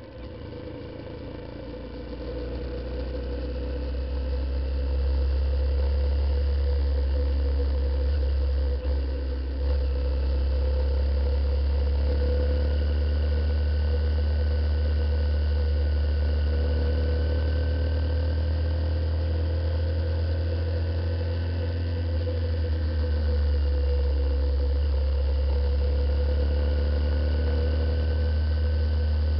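A Honda CBF125 motorcycle on the move, its single-cylinder engine running steadily under a heavy low rumble of riding noise. The sound grows louder over the first five seconds as the bike picks up speed, then holds at an even cruise.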